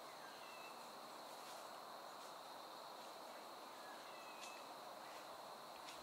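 Quiet woodland ambience: a steady high-pitched drone over faint hiss, with two brief high chirps, one about half a second in and one about four and a half seconds in.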